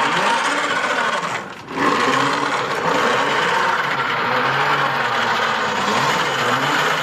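B-17 ball turret being turned by hand, its gearing whirring steadily as the ball rotates, with a brief break about a second and a half in.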